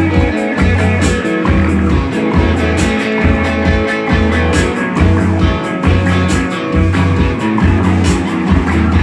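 Rock band playing live: guitar over a repeating bass line, with a steady beat of crisp strikes in the high range.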